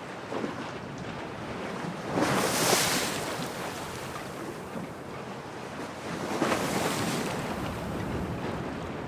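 Storm wind and sea waves, a steady rushing noise that swells twice into louder surges, about two seconds and six seconds in.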